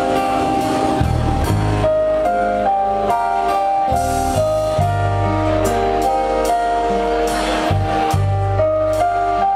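Live band music: sustained keyboard chords over held bass notes, with drum kit cymbal strokes.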